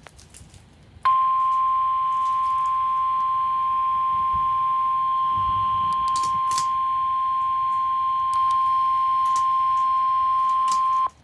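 NOAA Weather Radio's 1050 Hz warning alarm tone: one steady high-pitched beep held for about ten seconds, starting about a second in and cutting off just before the end. It is the Emergency Alert System attention signal that comes before a weather alert is read.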